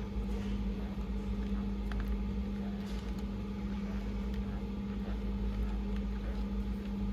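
Small electric motor of a toy RC excavator running with a steady hum, with a few faint light clicks.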